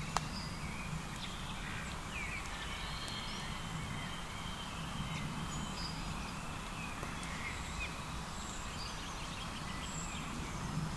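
Small birds chirping and whistling at intervals over a steady low outdoor rumble, with one sharp click just after the start.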